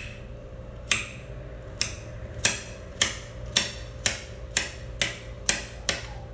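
Kitchen knife chopping a carrot directly on a bare countertop, with no cutting board: a regular run of sharp knocks, about two a second.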